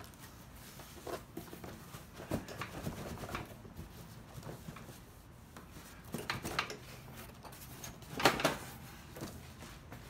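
Cardboard box being handled and lifted with a heavy heater inside: scraping and scuffing of cardboard, with a few knocks, the loudest about eight seconds in.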